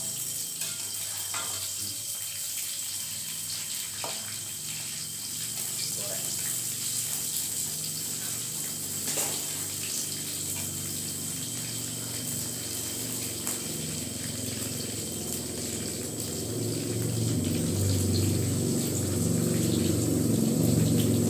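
Young bamboo shoots sizzling as they fry in a wok on a gas stove, with a metal spatula now and then clinking and scraping against the wok. Near the end a lower sound builds and grows louder.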